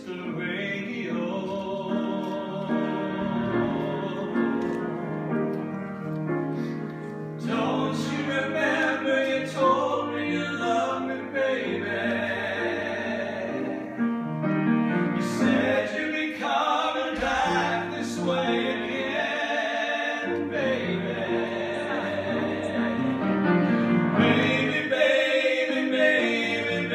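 Live song: a solo voice singing a held, wavering melody over instrumental accompaniment.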